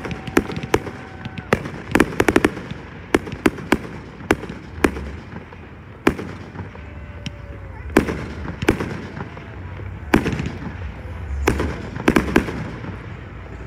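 Aerial firework shells bursting in a rapid, irregular series of sharp bangs, with quick crackling clusters a couple of seconds in and near the end.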